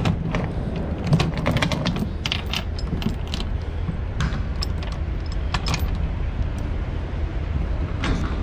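Steel load-securement chain clinking and rattling as it is handled and hooked to a ratchet binder: irregular metallic clinks over a steady low rumble.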